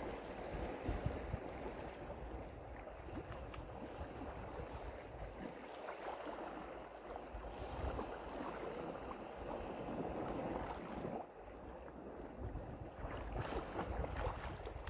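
Wind buffeting the microphone over the wash of small waves lapping on a rocky shore; the wind drops briefly about two thirds of the way through, then gusts again.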